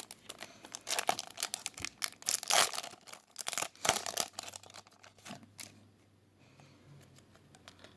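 Crinkling and tearing of a foil trading-card booster pack wrapper as it is handled and ripped open. The crackles come thick and fast for about five seconds, then die away.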